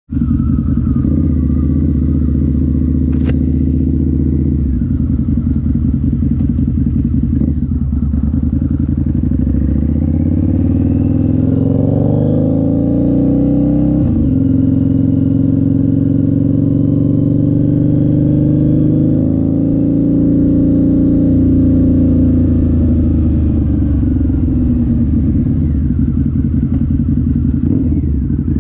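2003 Harley-Davidson V-Rod's liquid-cooled Revolution V-twin running through an aftermarket CFR exhaust while riding. The pitch rises under acceleration a third of the way in, drops sharply at a gear change near the middle, holds steady at cruise, then falls as the bike rolls off and slows near the end.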